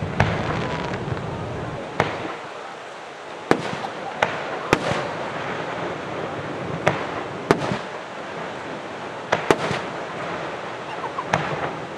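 Aerial firework shells bursting: about ten sharp bangs at irregular intervals, some in quick pairs, over a steady background hum of the crowd.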